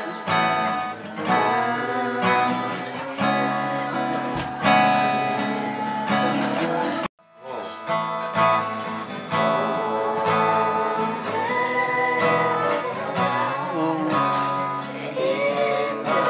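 Acoustic guitars strummed with singing. The sound drops out abruptly for a moment about seven seconds in, then the strumming and singing resume.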